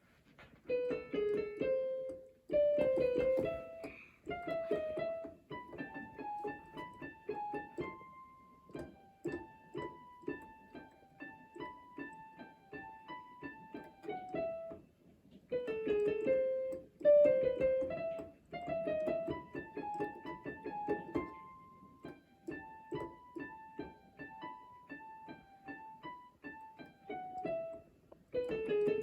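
A melody played on an electronic keyboard with a piano sound, one line of notes; the same phrase of about fourteen seconds is played twice.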